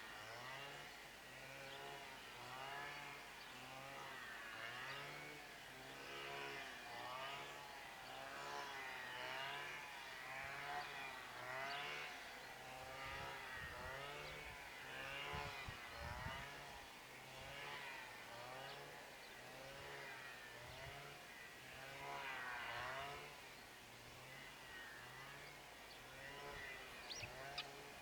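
Brushcutter engine running faintly, its pitch rising and falling about once a second. A couple of sharp clicks near the end.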